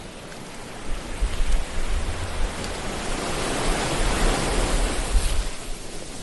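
Ocean surf washing on the shore: the hiss of a wave swells up about three seconds in and fades away near the end, over a low rumble that comes and goes.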